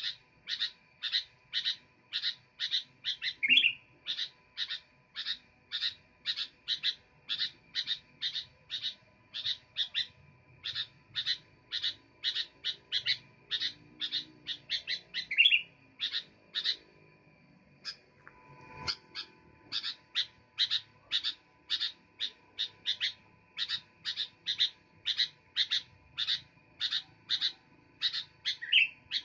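Sooty-headed bulbul (kutilang) calling continuously: a rapid, even series of short sharp chirps, two to three a second, with a longer rising call about every twelve seconds. The chirps break off for a couple of seconds past the middle, where there is a low thump, then resume.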